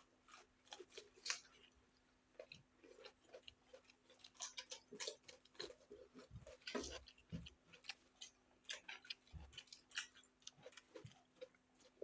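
People eating rice with egg curry at close range: irregular chewing, wet smacks and scattered small clicks and crunches, over a faint steady hum.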